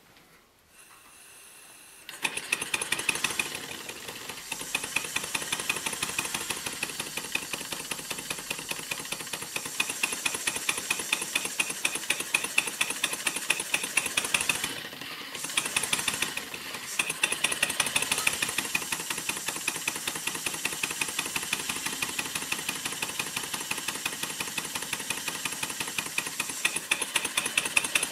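Chiltern model beam steam engine starting up about two seconds in and running fast with a rapid, even beat of exhaust puffs and valve clicks, its speed held by a working centrifugal flyball governor. The beat drops out briefly twice around the middle as a finger loads its pulley.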